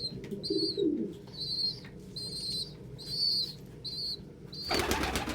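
Pigeons in a loft: a young pigeon peeping, a steady series of short high peeps about every half second, with a low coo in the first second. A short, loud rustling burst comes near the end.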